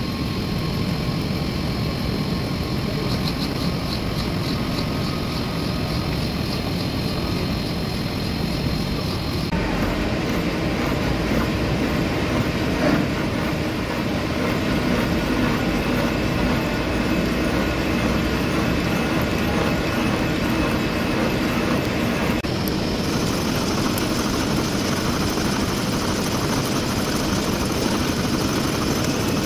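Milling machine spindle turning a boring bar that cuts metal inside a forklift steering axle housing bore: a steady mechanical running noise with faint steady tones. Its character changes abruptly twice, about ten seconds in and again about two-thirds of the way through.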